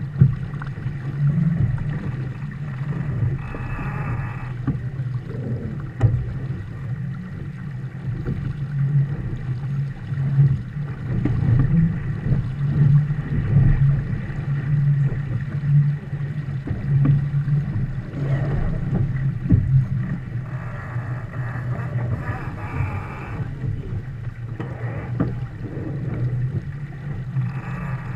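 Steady low rush of wind and water as a Viper 640 sport boat sails heeled over through the chop, swelling and easing with the gusts and waves.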